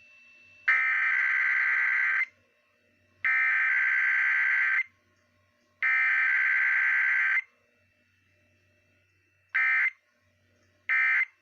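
Emergency Alert System SAME digital data tones: three long buzzing bursts of about a second and a half each, a second apart, which carry the alert header. Near the end come two short bursts of the same warbling sound, the end-of-message code.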